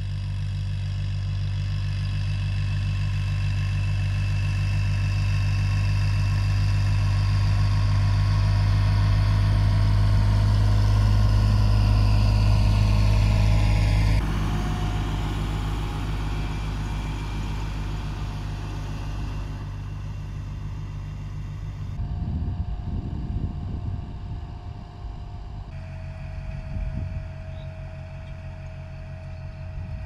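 Fiat DT55-56 tractor's diesel engine running steadily while pulling a two-row corn planter, growing louder over the first half, then dropping abruptly about halfway through and running on more quietly.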